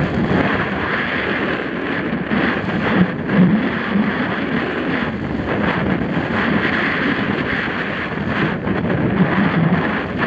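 Steady rushing wind on a helmet-mounted camera's microphone as a Santa Cruz Nomad mountain bike runs fast down a rough dirt trail. Frequent short rattles and knocks come from the tyres and bike over bumps.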